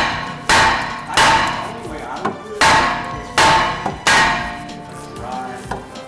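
Hammer blows on the old brake rotor of a BMW E46, about six sharp metallic strikes at an uneven pace, the rotor ringing briefly after each. They are knocking the rotor loose from the hub it is stuck to.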